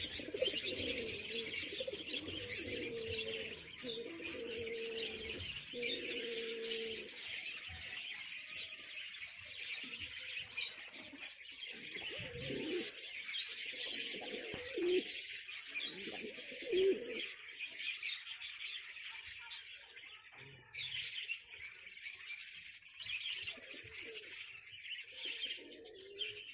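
Fancy pigeons cooing: a run of low drawn-out coos over the first several seconds, then scattered coos later. Constant dense high-pitched chirping of small birds runs underneath.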